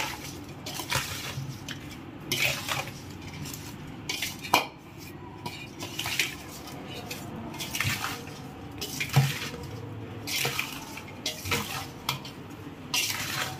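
Steel spoon scraping and clinking against a steel mixing bowl in irregular strokes while stirring oil-coated raw mango pieces for pickle, with a wet squelch of the chunks turning over.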